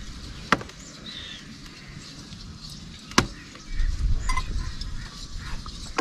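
Two sharp knocks about two and a half seconds apart, followed by a low rumble lasting about a second and a half.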